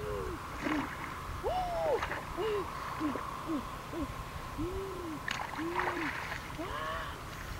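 An animal, likely a bird, hooting repeatedly: about a dozen short, arched hoots, one to two a second, varying a little in pitch. A steady faint high hum runs underneath.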